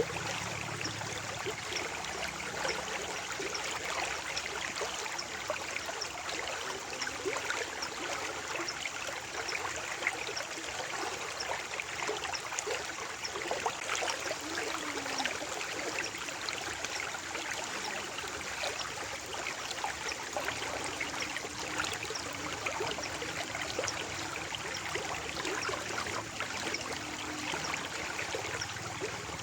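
A stream of water flowing calmly and steadily, with a constant fine patter of small trickles and splashes.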